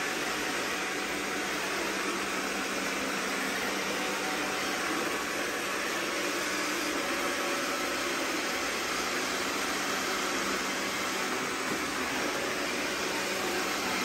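Two robot vacuums, a Roborock S4 and an iRobot Roomba 655, running as they sweep a tile floor: a steady whirring noise of suction fans and brushes, with a low hum that fades about halfway through.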